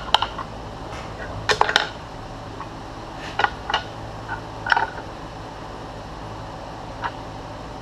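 An adjustable steel wrench and steel hold-down clamp hardware clinking while a part is clamped to a milling machine table: a few short metallic clinks in small clusters, about a second and a half in, around three and a half seconds, and near five seconds.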